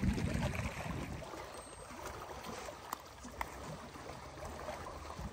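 Small waves lapping against a rocky lakeshore, a faint steady wash, with a low rumble in the first second and two light clicks about three seconds in.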